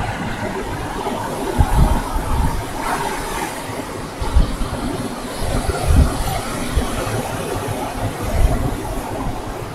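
Surf breaking on a sandy beach, a continuous rushing wash, with irregular gusts of wind buffeting the microphone.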